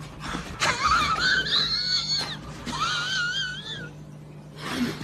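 French bulldog whining in several long, high, wavering cries that stop about four seconds in.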